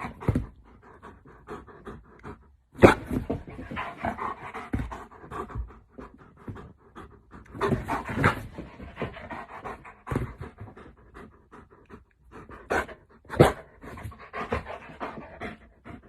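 A dog panting in uneven, breathy bursts, with a few louder knocks or bumps about three, eight and thirteen seconds in.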